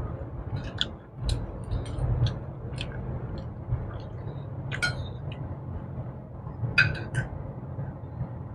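Metal forks clinking and scraping on a ceramic plate while people chew, heard as many short, irregular clicks over a low steady hum.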